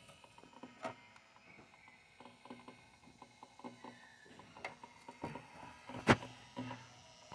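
Weg UPS (nobreak) humming in short bursts, with irregular clicking and crackling and one sharp, loud click about six seconds in. This is the growling noise that the owner treats as a fault.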